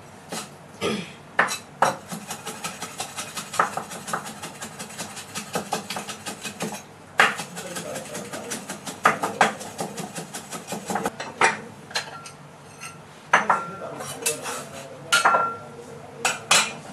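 Cleaver mincing seasoning on a thick wooden chopping block: long runs of fast, even chopping strokes, about six a second, broken by short pauses. Near the end come a few separate louder knocks and clinks.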